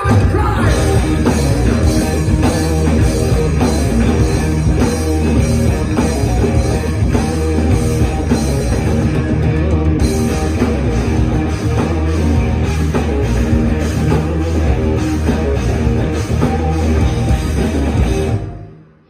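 A live rock band playing an instrumental passage on electric guitars, bass guitar and drum kit. The full band comes in at once at the start, plays loudly and stops abruptly near the end.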